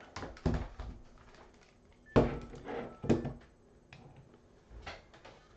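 Hands handling things on a desk: a series of knocks and rubbing. There is a cluster near the start, the loudest knock about two seconds in, another about a second later, and a softer one near the end.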